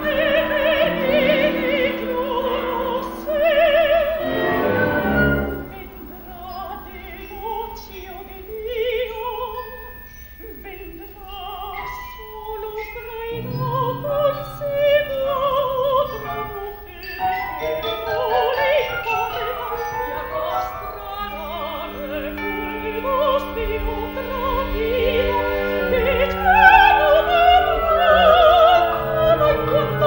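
A woman's operatic voice singing with wide vibrato over an orchestra. The music thins and softens through the middle, then swells to its loudest near the end.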